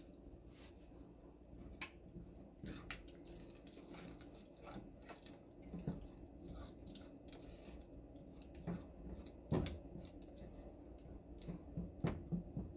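Faint wet, liquid sounds with scattered soft clicks of melted butter and heavy cream being stirred with a silicone spatula in a saucepan.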